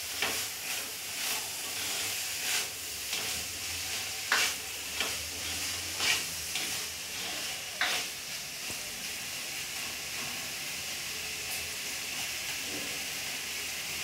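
Cauliflower and potato pieces sizzling in oil in a metal kadai, with a wooden spatula stirring and scraping against the pan several times in the first eight seconds. After that only the steady sizzle.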